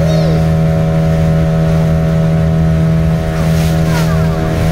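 Motorboat engine running steadily at constant speed, heard from on board the boat: an unchanging engine hum with a strong low tone.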